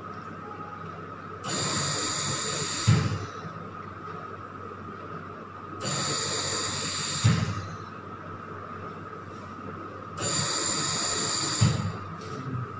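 Anaesthesia machine's bellows ventilator cycling through three mechanical breaths, about four and a half seconds apart. Each breath is a hiss of gas lasting about a second and a half that ends in a sharp thump, over a faint steady high tone.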